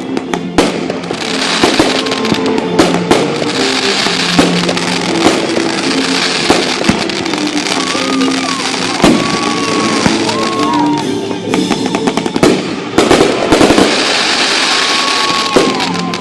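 Fireworks bursting with many sharp bangs and crackling, over music playing throughout.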